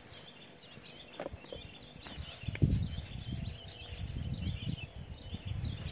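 Small birds chirping steadily in quick, repeated high notes. From about halfway through, rubbing and knocking close to the microphone join in, with one sharp knock the loudest sound.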